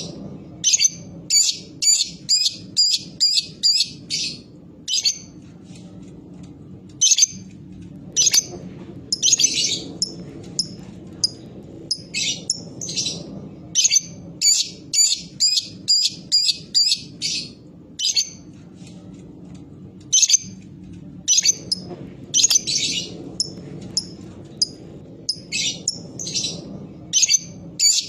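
Lovebird calling in runs of short, shrill chirps at about three a second (the 'ngetik' call used as a lure), broken twice by a longer, harsher chattering burst (the 'ngekek').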